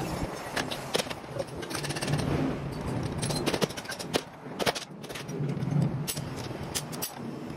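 Metal hand-tool clanks and clicks as the nut on a truck manual transmission's output flange is loosened with a breaker bar and socket, with a quick run of clicks a little past the middle. The bar and the removed flange are set down on the bench with sharp metal knocks.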